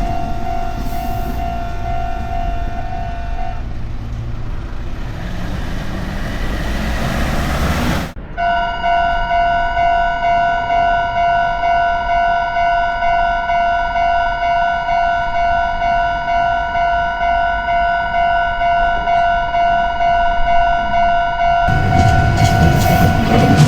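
Japanese level-crossing warning bell ringing with a train running past, the bell stopping a few seconds in while the train's rumble fades. After a sudden cut the bell rings alone at about two strokes a second, and a train's rumble comes in again near the end.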